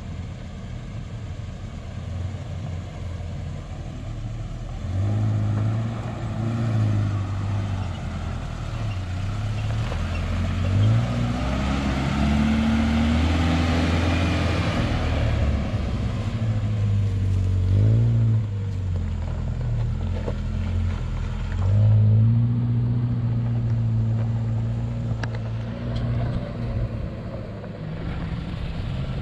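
4x4 SUV engines running and revving on a dirt and gravel off-road course, the pitch rising and falling in steps as the drivers work the throttle. Between about 11 and 16 seconds in, a vehicle passes close and a hiss of tyres on gravel swells and fades.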